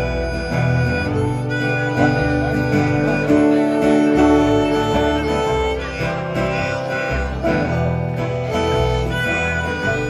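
Acoustic folk band playing an instrumental intro: strummed acoustic guitar and plucked upright bass, with a melody of held notes over them.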